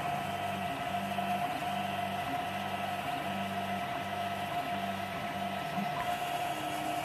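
TronXY X1 3D printer running a print: the stepper motors whine in short, changing tones as the print head and bed move, over the steady hum of the cooling fan.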